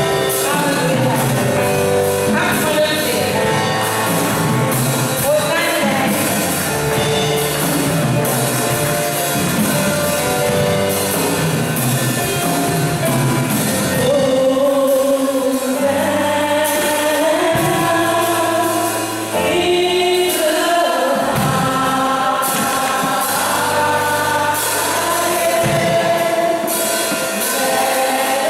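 Women's gospel choir singing in harmony over instrumental accompaniment, amplified through microphones and PA speakers.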